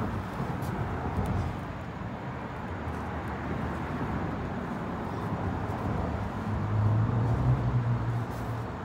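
Road traffic rumbling across the bridge deck overhead, with one vehicle passing louder, its engine droning, from about six and a half to eight and a half seconds in.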